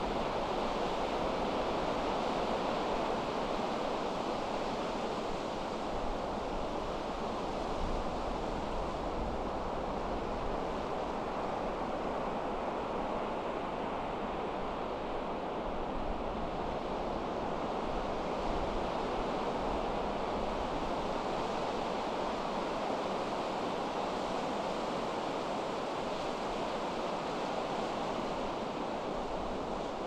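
Pacific surf breaking on a sandy beach: a steady, unbroken wash of waves with no single crash standing out, and wind rumbling on the microphone.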